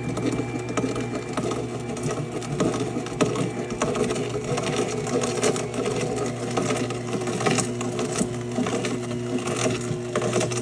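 Electric juicer's motor running with a steady hum while it grinds hard carrot pieces pushed down the chute, with irregular crunching over it.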